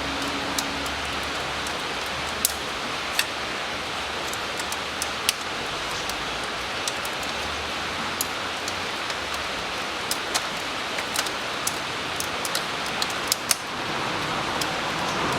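Steady hiss of background noise with scattered light clicks and taps, a few at a time, as the engine's head gasket is handled and lifted off the block.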